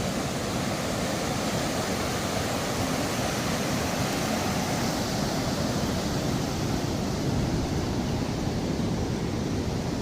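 Ocean surf breaking below the pier: a steady, unbroken rush of waves.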